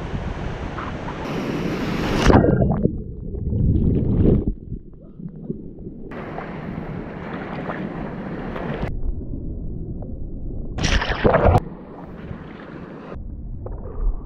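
Surf washing on a beach, mixed with wind buffeting the microphone. Two louder surges come about two seconds in and about eleven seconds in, and the sound changes abruptly several times.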